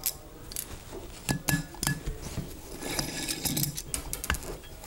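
Hex key working the screws out of a mechanical seal retainer in a metal pump housing: a few sharp metal clicks and clinks, with a brief ringing note about a second and a half in and a short scraping rustle around three seconds.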